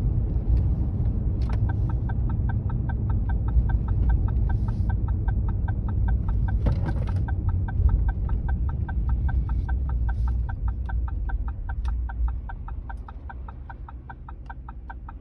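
A vehicle's turn-signal indicator ticking evenly, a few ticks a second, starting about a second and a half in, over the low rumble of the truck's engine and road noise. The rumble drops off near the end as the truck slows.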